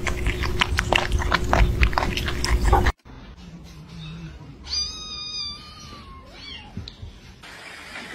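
Kittens lapping milk from a metal bowl: a quick, irregular run of wet clicks. After a sudden cut, a kitten gives one high meow that falls slightly at its end, and then a fainter second call.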